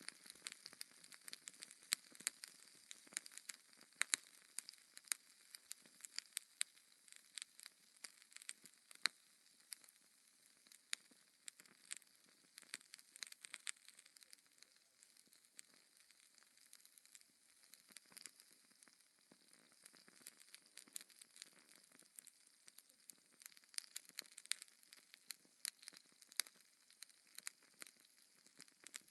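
Wood fire of burning logs crackling: irregular sharp pops and snaps over a faint, steady hiss.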